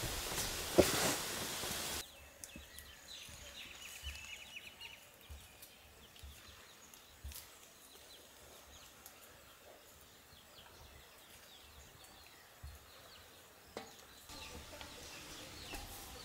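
Birds chirping faintly in quiet outdoor surroundings, with a few small clicks. For the first two seconds a loud rustling noise covers everything, then stops abruptly.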